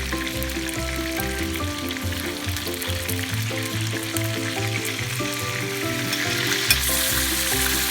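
Chicken thighs sizzling steadily as they fry in hot canola oil in a pan, the sizzle growing a little louder near the end, with background music playing underneath.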